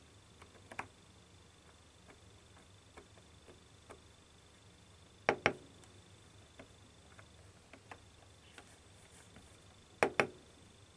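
A string of small clicks and taps, with two louder double clicks, one about five seconds in and one about ten seconds in, over a faint steady high-pitched whine.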